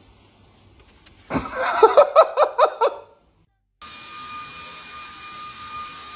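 A short burst of rhythmic laughter, about seven quick pulses, then after a brief dead stop a steady whirring noise with a constant high whine.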